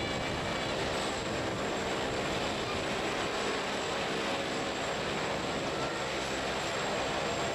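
Mi-8 helicopter's twin turboshaft engines and main rotor running at high power as it lifts off. The noise is steady and dense, with a thin high turbine whine over it.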